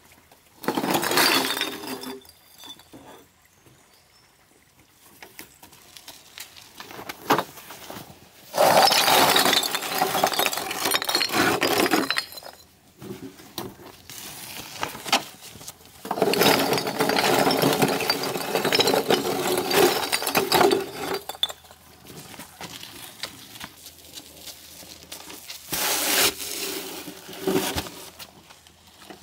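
Hollow clay bricks clattering and clinking against one another and a metal wheelbarrow tray as loads are tipped out, in four noisy spells of a few seconds each with scattered clinks between them. Near the end a wheelbarrow is tipped out again.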